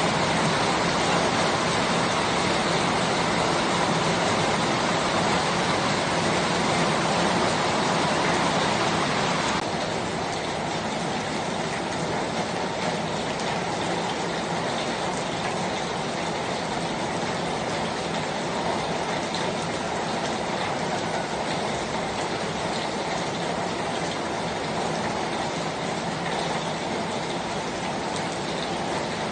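Steady rain falling, an even hiss without separate drops standing out; about ten seconds in it becomes a little quieter, mostly in its higher part.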